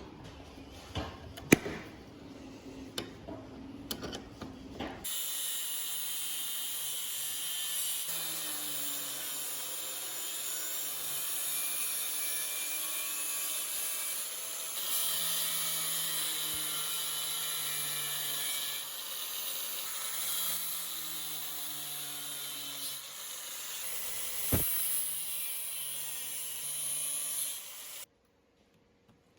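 A few knocks and clicks of metal parts being handled, then a small power tool runs steadily with a hissing, grinding sound and a slightly wavering motor tone for about twenty seconds, with one sharp knock near the end, before it cuts off suddenly.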